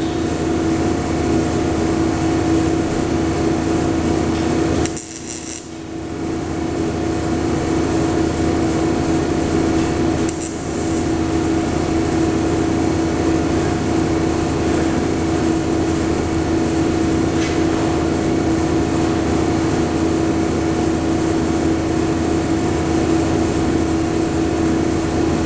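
TIG welding arc buzzing steadily as silicon bronze filler is laid onto a small part, with a brief break in the arc about five seconds in and a shorter one near ten seconds.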